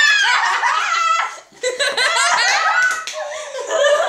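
Children laughing and squealing loudly with high, sliding voices, with a short break about a second and a half in.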